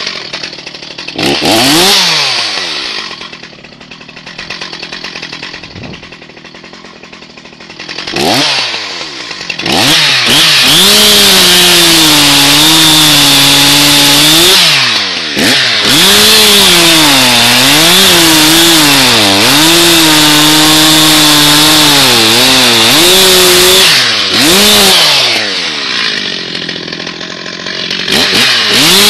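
Stihl MS361 two-stroke chainsaw revving up twice and idling, then running at full throttle with its pitch sagging and wavering under load as it cuts wood, with a short let-off partway. Near the end it drops back toward idle.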